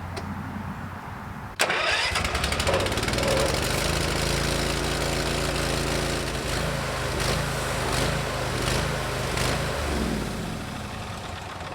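Engine-driven hot-water pressure washer coming on suddenly about one and a half seconds in and running with the gun's trigger held open, spraying with a steady engine drone under the hiss, then winding down near the end. It is putting out only about 1,000 psi against its 3,500 psi rating: a low-pressure fault.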